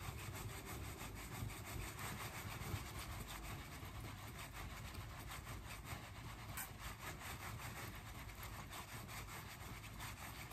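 A makeup brush rubbing back and forth over the cheek in quick repeated strokes, a soft scratchy brushing, applying bronzer or contour.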